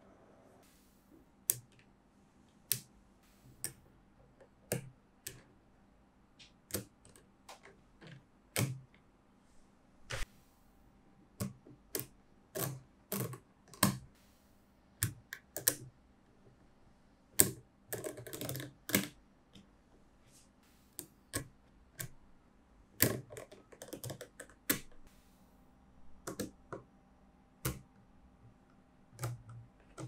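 Small neodymium magnet balls clicking and snapping together as strips of them are pressed onto a magnetic-ball structure: sharp, irregular clicks, with a dense clatter of clicks about 18 seconds in.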